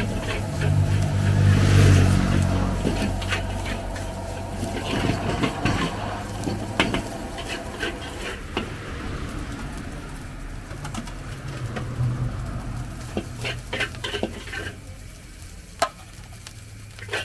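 Metal spatula scraping and clanking against a wok as fried rice is stir-fried, with a frying sizzle and a steady low gas-burner roar underneath. Near the end the scraping turns to scooping the rice out onto a plate.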